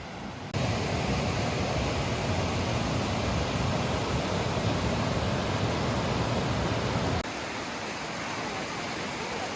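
Steady rush of water tumbling over rocks at a creek's small waterfalls. It starts suddenly about half a second in and drops to a quieter rush about seven seconds in.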